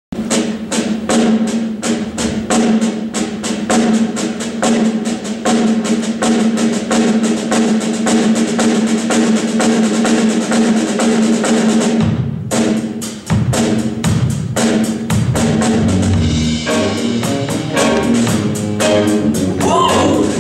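Live R&B band playing a song's intro: drum kit beating fast and steady over a held note, a short break about twelve seconds in, then the full band comes in, with a singing voice starting near the end.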